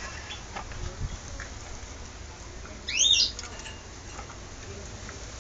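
A caged finch gives one short, sharp call about three seconds in, a note that rises and falls quickly, with faint light ticks around it.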